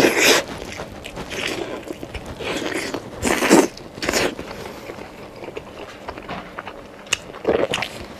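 Biting into and chewing a braised beef steak on the bone: soft, wet bites into tender meat followed by chewing, in irregular bursts with several louder bites.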